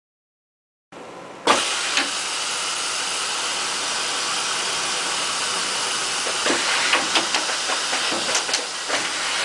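Steady hiss, as of air, at the Dürkopp Adler 806 automatic sewing unit, starting with a sudden jump in level. From about six seconds in, light clicks and knocks come through as the fabric and template clamp are handled.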